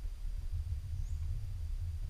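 Low, irregular rumble on the microphone, with one faint, short high chirp about a second in.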